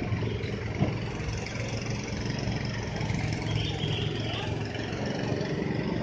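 An engine running steadily at idle, a constant low hum.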